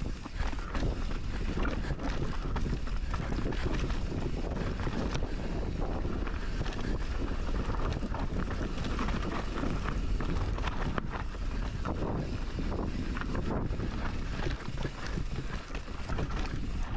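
Wind rushing over the microphone of a camera on a mountain bike riding down a trail, with the tyres and frame clattering and knocking over rough ground.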